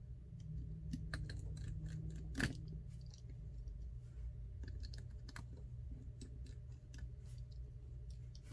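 Small repair tools clicking and ticking against the opened iPhone XR's internal parts, in scattered light taps with one sharper tick a couple of seconds in, over a low steady hum.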